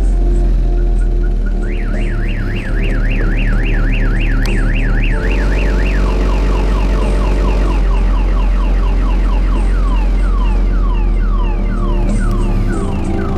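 Car alarm siren going off, triggered by the vibration of loud car-stereo bass. A fast up-and-down warble starts about two seconds in, and about six seconds in it switches to a repeating falling chirp, all over heavy bass-laden music.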